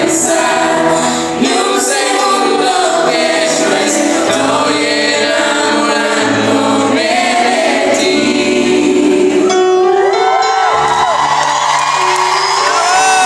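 Pop song performed live by a band, with several female voices singing the melody together.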